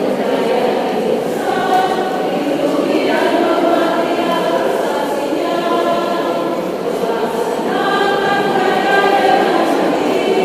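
Women's choir singing together in parts, holding long sustained notes that change every second or two.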